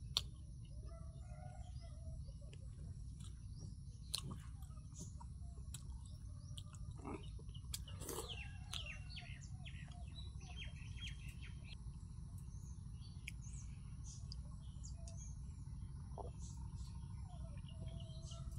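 Quiet outdoor ambience: birds chirping now and then over a steady low rumble and a steady high tone. Two sharp clicks stand out, one at the start and one about four seconds in, amid soft sounds of fingers gathering rice grains off a banana leaf.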